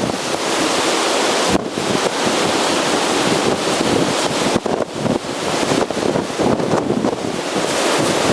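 Storm-force wind blowing hard across the microphone, gusting unevenly, over large storm waves breaking on the lake shore.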